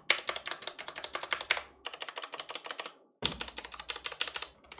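Ducky One 3 mechanical keyboard with Cherry MX Brown switches being typed on fast, a dense clatter of key clicks in quick runs with a short pause about three seconds in.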